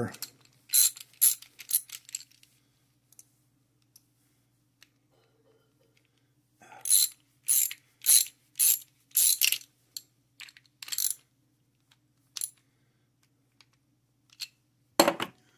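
Small steel parts of a lead-screw assembly (roller thrust bearings, rings and a key on a threaded shaft) clicking and clinking as they are fitted together by hand. A short cluster of sharp metallic clicks comes near the start, then a run of about two clicks a second in the middle, with a last loud click near the end.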